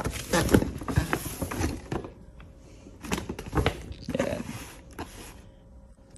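Stiff paper shopping bag rustling and crinkling as a boxed watch is pulled out of it and set down, in two spells of handling: one in the first two seconds, another from about three to five seconds in.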